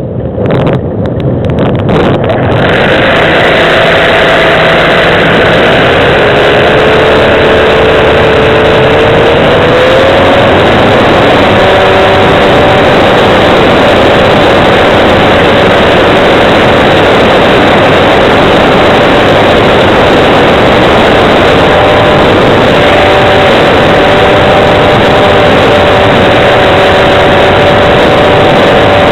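Homebuilt RC plane's motor running, heard from a camera mounted on the plane, under a loud, steady rush of wind over the microphone. For the first two seconds it is quieter and broken, then it settles loud, and about ten seconds in the motor's tone glides up in pitch and holds there.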